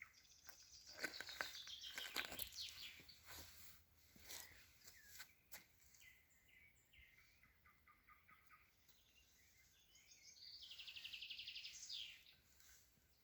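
Songbirds singing faintly: a fast trill that falls in pitch near the start and another fast trill near the end, with a few short clicks in the first half.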